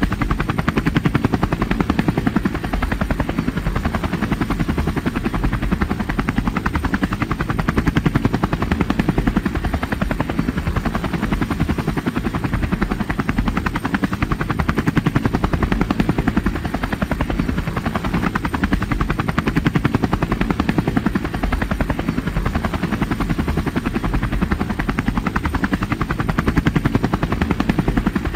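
Multirotor drone's propellers and motors running steadily in flight: a dense, even buzz with a rapid beat.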